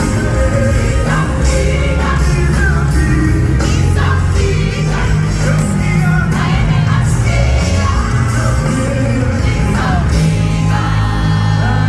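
Loud live gospel worship music: a band with a heavy, sustained bass under a gliding melody line, with singing voices.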